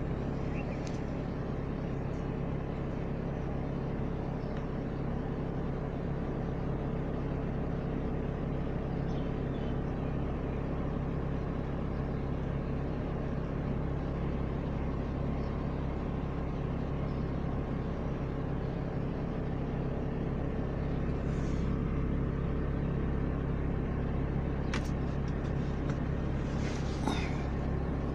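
Steady noise of heavy rain, with a constant low hum underneath. There are a few short, sharp sounds near the end.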